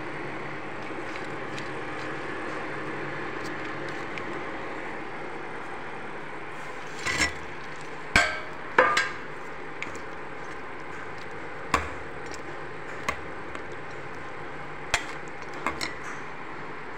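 Steel plate and slotted steel ladle clinking and knocking against a cooking pan as fried pakoras are tipped into simmering kadhi and stirred. The loudest cluster of knocks comes about 7 to 9 seconds in, with single clinks after that, all over a steady background hiss.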